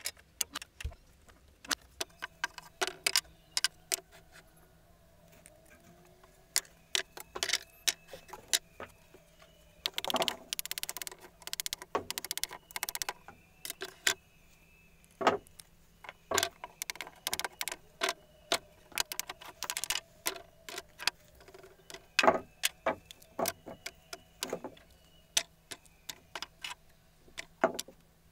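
Irregular sharp clicks and knocks, hard and tick-like, with a dense flurry about ten seconds in and louder single knocks later on, over a faint steady hum.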